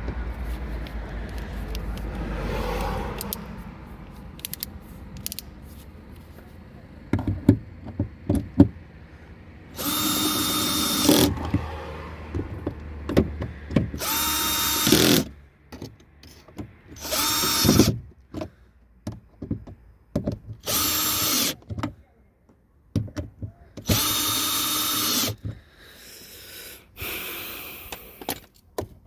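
Power drill driving screws, run in five short bursts of a steady motor whine, each a second or so long, with clicks between them. It is driving the door-trim screws back in.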